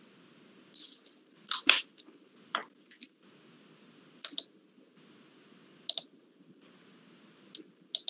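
Scattered sharp clicks of computer controls, about ten in all, several in quick pairs, over a low room hum. A short hiss comes about a second in.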